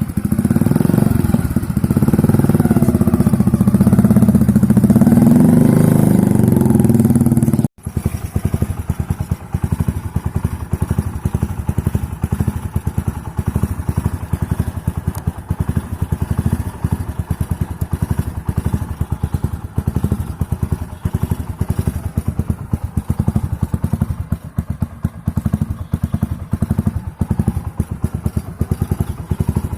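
Motorcycle with an aftermarket short silencer running loudly at raised revs for the first several seconds. After a sudden break about eight seconds in, it settles to idle with a rapid, even thumping exhaust pulse.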